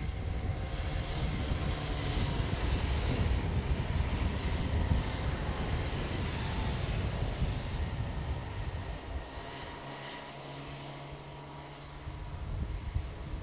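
Children's racing go-kart engines buzzing as the karts lap the track, with wind rumbling on the microphone. The engine noise is strongest in the first half, eases off about nine seconds in and picks up again near the end.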